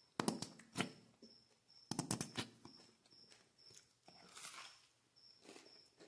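Plastic ketchup squeeze bottle sputtering and crackling in two short bursts as ketchup is squeezed out, then a softer hiss. A cricket chirps steadily in the background.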